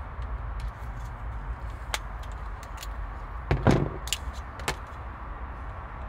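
Light clicks of a plastic-and-metal seat belt extender arm and needle-nose pliers being handled, with a duller knock about three and a half seconds in, over a steady low hum.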